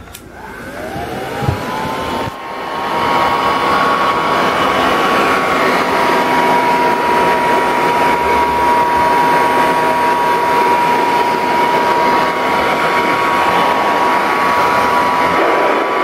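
1935 Singer R1 vacuum cleaner starting with a click. Its motor spins up in a rising whine over the first two seconds, then runs steadily with a high whine over loud rushing air.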